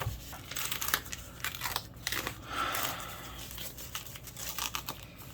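Packaging being torn and crinkled open by hand: an irregular run of crackling rustles and rips.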